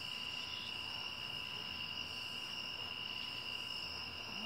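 Steady chorus of crickets and other night insects: a continuous shrill trill on two pitches.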